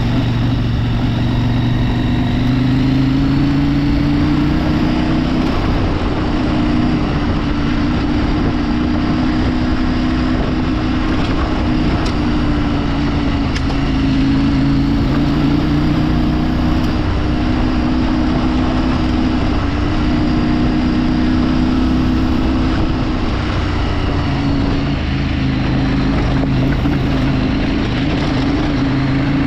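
Motorcycle engine running under way. Its pitch rises about two seconds in and then wavers up and down with the throttle, over a steady rushing noise.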